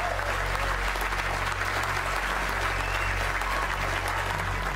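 Large audience applauding, a steady dense wash of clapping that cuts off suddenly near the end.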